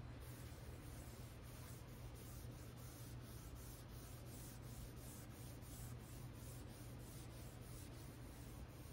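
Foam applicator pad rubbing paste finishing wax into a wooden cabinet top: soft, faint swishing strokes, about two to three a second.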